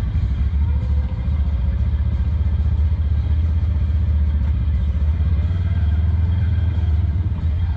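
Off-road vehicle's engine running with a steady low rumble.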